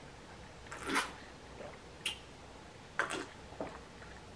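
A person gulping a cold drink from a glass, close to the microphone: about four swallows roughly a second apart, the first the loudest.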